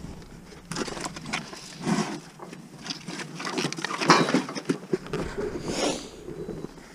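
Heifers jostling in a metal cattle crush, with irregular knocks, clicks and rustling against the rails. The loudest knock comes about four seconds in, and a short breathy rush comes near the end.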